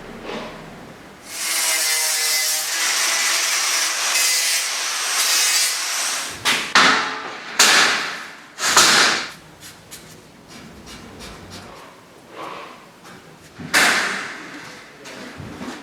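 Steel being cut for a shelf: a steady, harsh cutting noise for about five seconds, then several separate scraping strokes.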